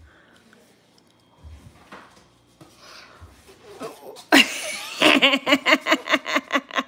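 A person breaking into laughter about four seconds in: a sudden loud breathy burst, then quick rhythmic laughs at about five a second.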